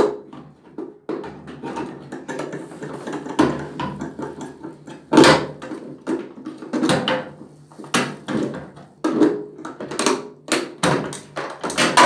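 Hard plastic knocking, clicking and scraping, irregular and uneven, as a washing machine's detergent drawer housing is worked loose from the front panel by hand.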